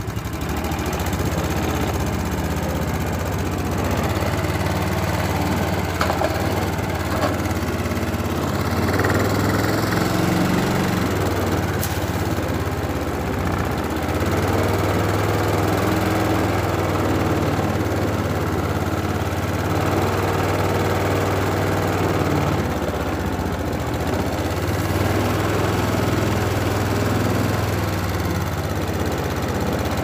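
Small boat engine running steadily under way, its level swelling and easing slightly every few seconds, with the rush of the boat's wake.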